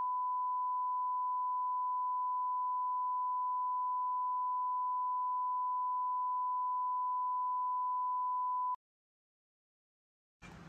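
A steady single-pitch bleep tone, about 1 kHz, edited over the sound track with nothing else audible beneath it. It cuts off abruptly about nine seconds in and is followed by dead digital silence.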